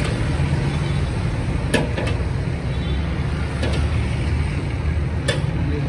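Steady low rumble of street traffic, with about four sharp clinks of a steel ladle against a steel pan as rabri is scooped out.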